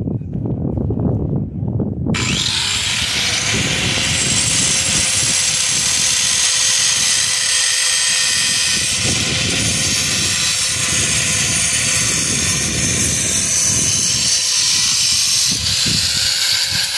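A small power tool's motor running steadily at high speed, starting suddenly about two seconds in.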